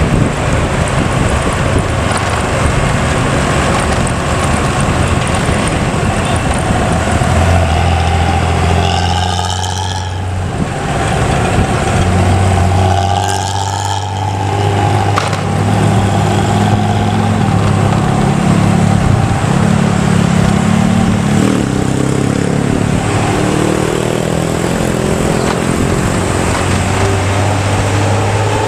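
Intercity bus diesel engine and exhaust running in traffic with a deep, steady drone. Its pitch steps up and down as it pulls and shifts. This is the growling 'ngorok' exhaust note.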